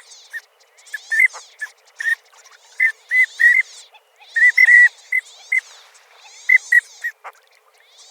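Short, high-pitched bird calls in quick clusters of two to four, about one cluster a second. This is a speculative reconstruction of the extinct duck relative Vegavis, made by editing yellow-billed pintail and magpie goose calls.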